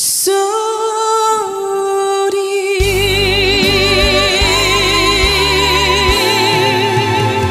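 Female trot singer holding a long note with wide vibrato, the backing band coming in with bass and drums about three seconds in.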